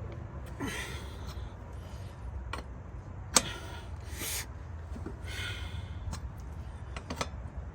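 Lug wrench on a car's wheel lug nuts as they are broken loose: a few sharp metallic clicks, one louder than the rest about a third of the way in, with several breaths of effort in between.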